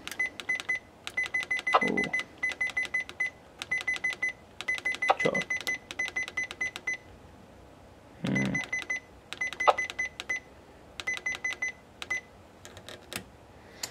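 Yosan CB radio base station beeping as its frequency is stepped down button by button toward the bottom of its range: runs of short high beeps, several a second, broken by pauses, with a few brief lower tones between runs.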